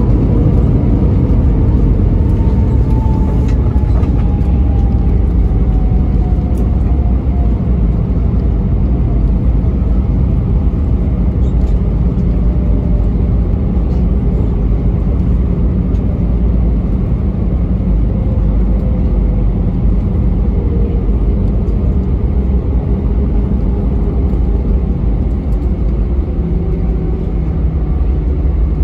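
Cabin noise of an Airbus A319 rolling out on the runway after landing, ground spoilers deployed: a loud, steady low rumble of wheels and airflow, with an engine whine that slowly falls in pitch over the first twenty seconds as the engines wind down.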